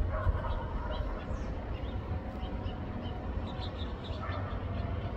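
Backyard outdoor ambience: small birds chirping in short, scattered calls over a low rumble and a faint steady hum of distant traffic.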